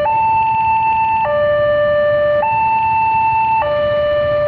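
Railway level-crossing warning alarm: an electronic two-tone signal that alternates between a higher and a lower tone, each held a little over a second. It is sounding because a train is approaching and the crossing is closed.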